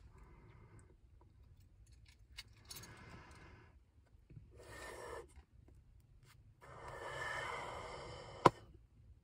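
Bubblegum bubble being blown: a few short breathy puffs of air through the lips, then a longer steady blow as a large bubble inflates, ending in one sharp pop as the bubble bursts near the end.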